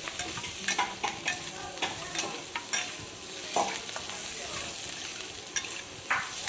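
Chopped capsicum, green chillies and onions frying in oil in a pan with a steady sizzle, being stirred, the utensil clicking and scraping against the pan many times.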